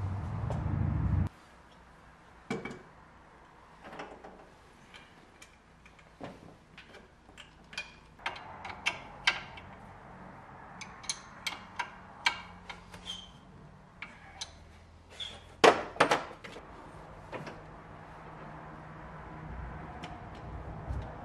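Hand tools clinking and knocking on metal engine parts while the alternator, pulleys and belts are refitted to a BMW M20 engine: scattered sharp clicks and clanks, the loudest a pair of knocks about two-thirds of the way through. A low steady hum cuts off suddenly about a second in.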